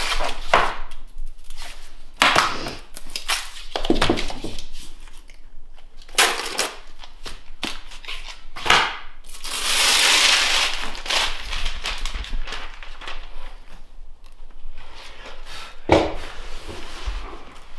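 Flooring pieces being handled and knocked into place: a series of sharp knocks and clatters, with a longer rustling scrape about ten seconds in.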